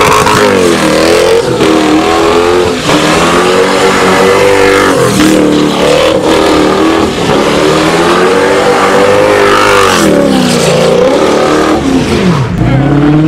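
A car doing donuts: its engine is held at high revs that swing up and down over and over, dipping sharply about ten seconds in and climbing again near the end. Under the engine, the rear tyres are spinning and hissing against the pavement.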